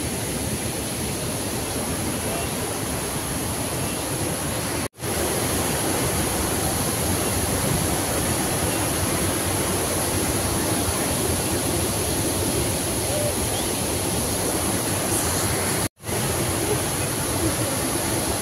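Steady rush of a waterfall in full spate, with two brief gaps in the sound about five and sixteen seconds in.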